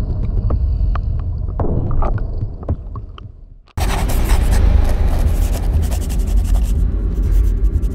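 Underwater sound recorded at depth: a low rumble with scattered sharp clicks and knocks and a faint steady high tone, fading and then cutting off about three and a half seconds in. A loud, dense rumbling whoosh then starts suddenly and runs on as the opening of a music track.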